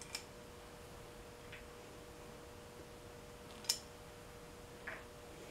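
A few light, sharp clicks of bolts being set into the new water pump's bolt holes, the loudest about two-thirds of the way through, over a faint steady hum.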